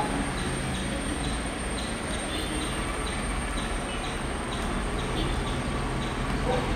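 Distant helicopter flying overhead: a steady rumble of rotor and engine with a faint regular beat.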